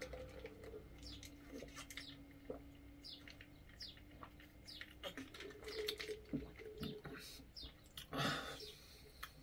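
Faint gulping and swallowing as a person drinks from a plastic shaker cup, with many small wet clicks and a short louder noise about eight seconds in.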